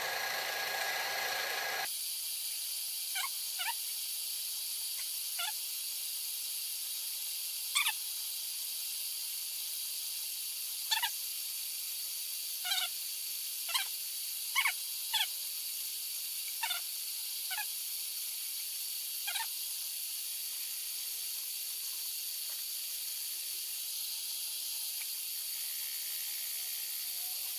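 Grizzly mini mill spindle running a flycutter at about 400–450 RPM on a very shallow pass of about 3 thou, giving a steady hum and hiss. About a dozen short, high chirps come at irregular intervals as the cutter catches only the high spots of an aluminum block that is not flat.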